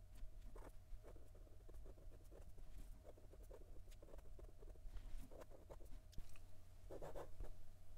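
Fountain pen with a 14-karat gold medium nib writing on lined notebook paper: faint, quick, irregular strokes of the nib sliding across the page as a line of handwriting goes down, with a louder stroke about seven seconds in.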